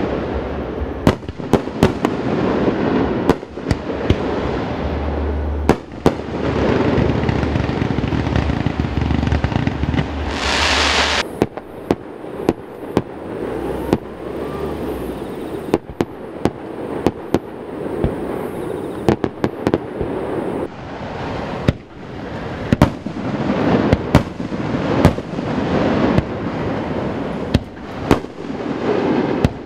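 Fireworks display: a rapid, irregular series of loud shell bursts and launch bangs over continuous crackling, echoing off the surrounding mountains, with a brief high hiss about ten seconds in.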